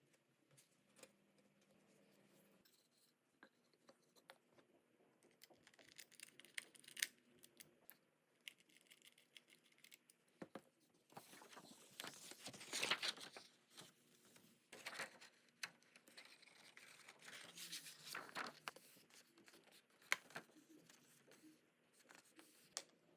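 Faint hand-work sounds: intermittent scraping and rustling with scattered light clicks and taps, in three louder spells about a quarter, half and three quarters of the way through.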